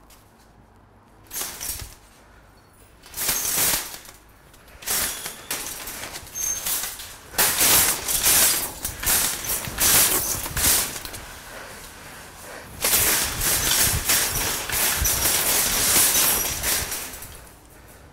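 Nested metal shopping carts rattling and clanking as they are yanked against the coin-lock that chains them together, which will not release without a coin. Several short bursts of clatter, then two longer spells of rattling in the second half.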